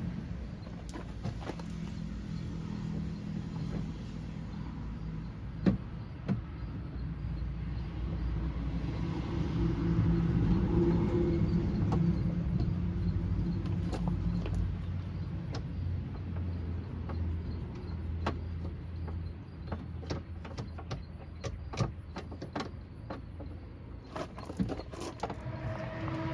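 Hand work inside a car door: scattered sharp clicks and knocks of a bolt and tool against the door's metal, more frequent in the second half, over a low steady hum.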